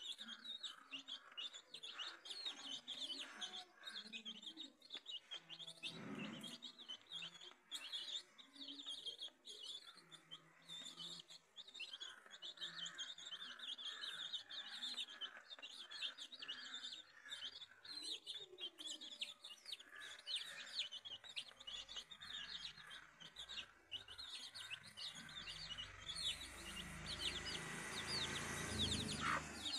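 A flock of chicks peeping continuously in short, high, falling cheeps, with a hen clucking low now and then. A low rumble builds over the last several seconds.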